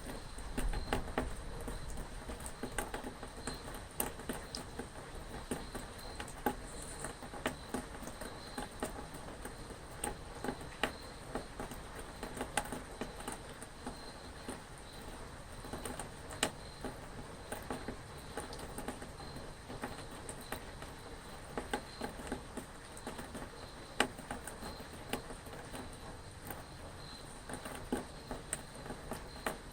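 Rain pattering, with many irregular individual drops ticking sharply close by.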